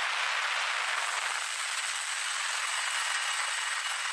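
Steady rushing cabin noise of an MH-53E Sea Dragon helicopter in flight, with a faint, steady high-pitched whine.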